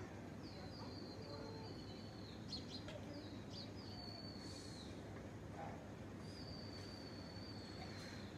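Faint outdoor ambience with a bird's thin, high, slightly falling whistled notes, repeated several times and each lasting a second or two.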